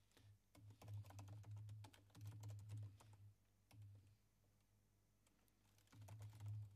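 Faint computer keyboard typing: a quick run of keystrokes in the first three seconds or so, a pause, then more keys near the end.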